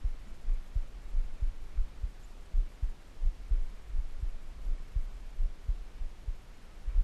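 Low muffled thumps and rumble, irregular and several a second, with nothing higher-pitched: handling noise on the camera's microphone as the camera moves.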